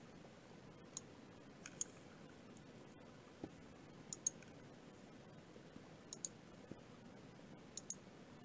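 A handful of sharp computer mouse clicks, several in quick pairs, over faint background hiss.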